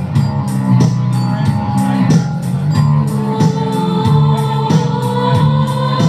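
Live band playing rock: a bass guitar line under a steady drum beat, with keyboard notes held from about halfway in.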